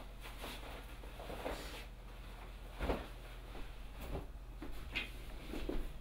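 Fabric rustling and light handling noises as a jacket is taken off and tossed onto a bed, with a soft thump about three seconds in.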